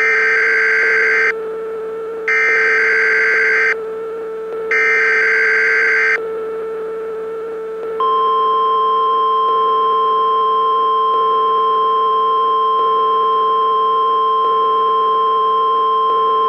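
Weather-radio emergency alert for a tornado warning: three short bursts of warbling data-header tones, then, about eight seconds in, a long steady alarm tone, over a constant hum.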